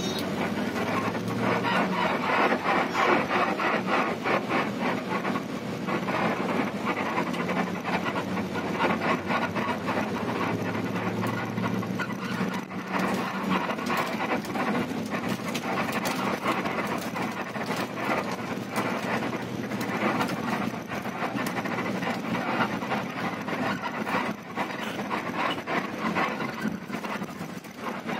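Inside a moving coach bus: steady engine drone and road noise, with frequent short rattles and creaks from the cabin fittings.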